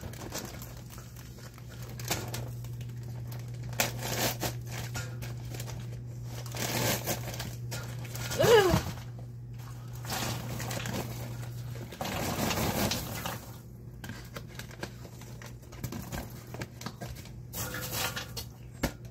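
Paper microwave-popcorn bags crinkling as popped popcorn is shaken out and rustles into an enamelware roasting pan, with a short squeak about halfway through.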